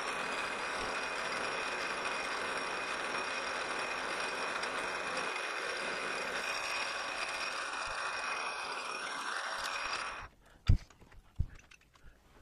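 Metal lathe running while a quarter-inch drill in the tailstock chuck drills a pilot hole through the spinning workpiece: a steady machine whir with a thin high whine. The lathe sound cuts off suddenly about ten seconds in, followed by a couple of sharp knocks.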